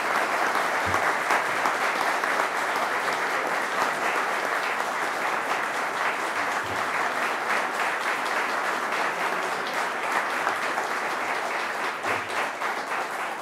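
A room full of people applauding, steady dense clapping.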